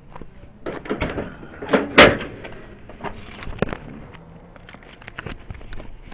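Scattered knocks and clatters, the loudest a sharp bang about two seconds in, with smaller thuds around it and a few more later.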